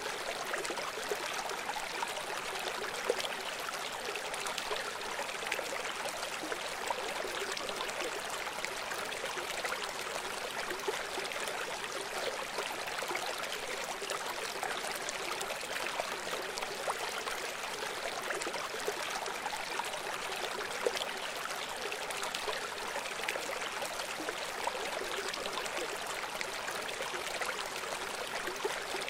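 River water flowing steadily, an even rushing sound with little deep rumble and no break or change.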